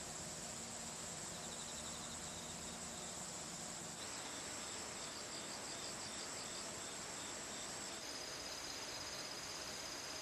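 Insects singing in summer vegetation: a steady high buzz with rows of rapid, evenly pulsed chirps over it. The mix of insect calls changes abruptly about four and eight seconds in.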